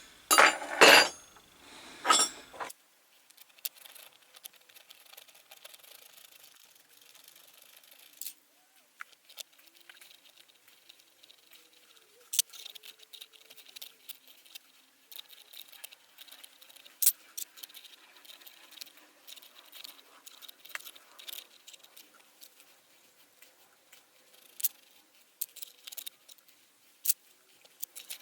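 Metal parts of a lathe fixed steady being handled during reassembly: a loud burst of knocks and handling noise in the first two seconds or so, then scattered light clicks and clinks.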